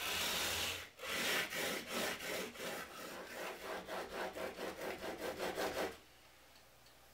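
Steel plane iron in a Veritas Mk.II honing guide scraped back and forth on 220-grit wet/dry sandpaper, grinding its bevel down to 25 degrees. One long stroke, then quick strokes about three a second, stopping about six seconds in.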